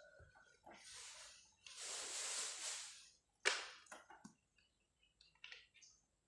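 Handling noises: two stretches of hissing rustle, then a sharp click about three and a half seconds in, followed by several lighter clicks and taps.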